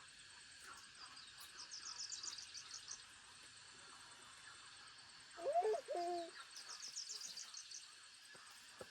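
Birds calling over a steady insect drone: two rapid, high trills about five seconds apart, and a louder, low hooting call of two notes about halfway through.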